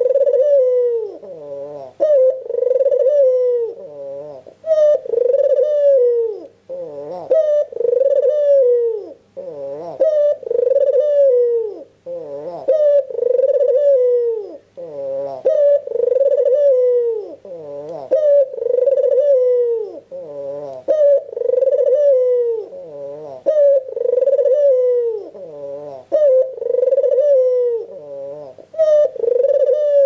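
White albino puter (Barbary/ringneck dove) cooing persistently. The coos come about one every two seconds, each a rolling start running into a held note that drops at the end.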